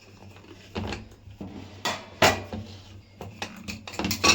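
Kitchen pots and utensils being handled: a few separate knocks, one sharp clank in the middle, then a quick run of clinks near the end, over a low steady hum.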